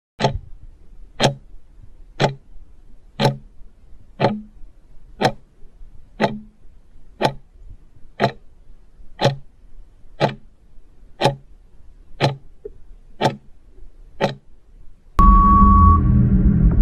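Quiz countdown-timer effect: a clock ticks once a second, about fifteen times, then a loud time-up sound with a steady tone cuts in near the end as the answer time runs out.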